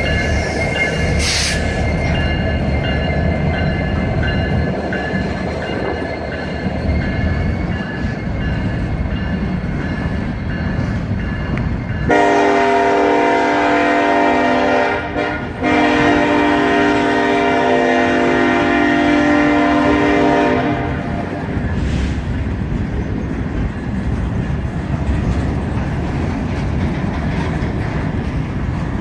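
Freight train rolling by with a steady rumble of wheels on rail, and a thin high squeal over the first eight seconds or so. About twelve seconds in, the locomotive's horn sounds for about eight seconds, with a brief break about three seconds into it, over the rumble, which carries on after the horn stops.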